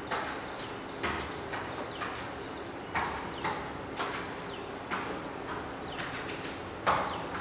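Short thuds and slaps, about one or two a second, from a barefoot person exercising on a foam mat: feet landing and arms swinging against the body. The loudest comes near the end.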